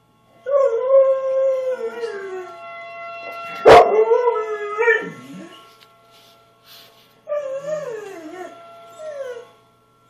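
Dog howling in reaction to tornado sirens: two long, wavering howls that fall in pitch, the first starting about half a second in and the second about seven seconds in. A sharp knock about four seconds in is the loudest moment.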